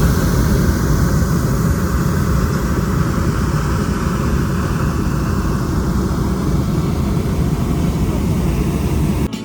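A hot-air balloon's propane burner firing: a loud, steady rushing noise that cuts off abruptly just before the end.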